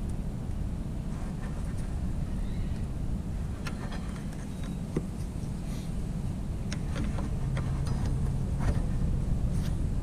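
Steady wind rumble on the microphone, with scattered faint metallic clicks and scrapes from about the middle on: a hand tool levering at the brake pad and piston in a motorcycle's front brake caliper.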